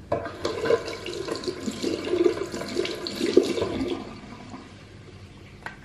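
Water running from a tap into a sink for about four seconds, starting abruptly and fading out, followed by a single sharp click near the end.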